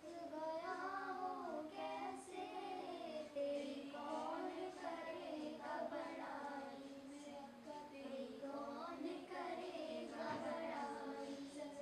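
A boy singing a naat, an Urdu devotional hymn, solo in a high unbroken voice, his melody gliding through long phrases with short breaths between them and no instruments.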